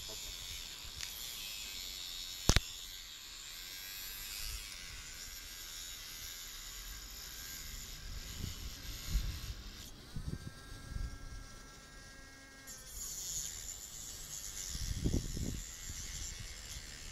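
Small high-speed rotary tool with a cut-off disc grinding through the steel of a pair of handcuffs, a steady buzzing grind that grows louder near the end. There is one sharp click about two and a half seconds in, and a few dull knocks later on.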